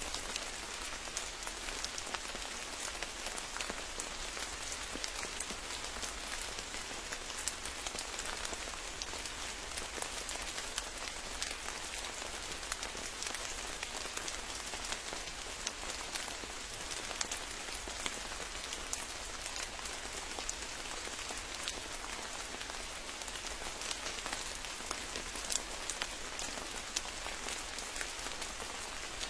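Steady rainfall, an even hiss of rain with many separate close drop hits scattered through it.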